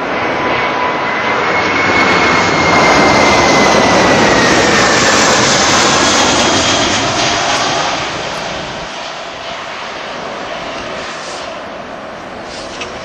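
Airbus A319's CFM56 turbofan engines at takeoff thrust as the jet lifts off and climbs away. A loud, dense jet noise carries a whining fan tone that slides down in pitch. The sound swells to its loudest a few seconds in, then fades after about eight seconds.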